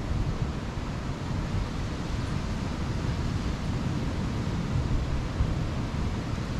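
Steady rush of surf breaking on the beach, with wind rumbling on the microphone.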